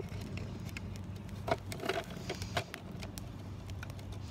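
Footsteps rustling through dry grass with scattered small crackling clicks from a wood campfire, over a steady low rumble.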